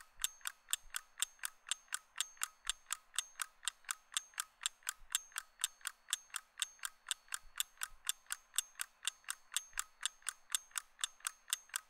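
Ticking clock sound effect counting down a timer: sharp, even ticks at about four a second.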